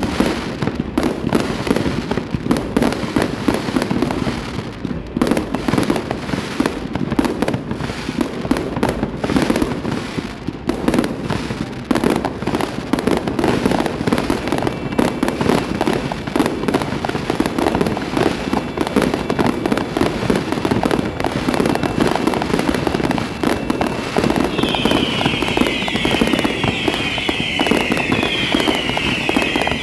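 A fireworks display heard from close range: a dense, continuous crackle of bangs and pops. Near the end a rapid run of high, falling whistles joins in.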